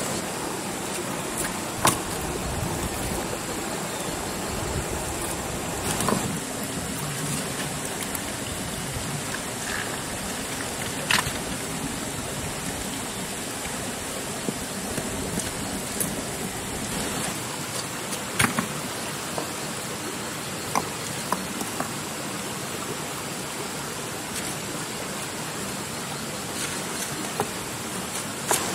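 Steady rushing noise like running water, with several sharp clicks and knocks at irregular intervals.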